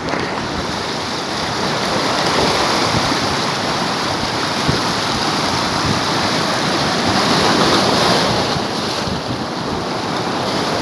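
Sea surf washing against shoreline rocks, with wind buffeting the microphone: a continuous rush that swells through the middle and eases near the end.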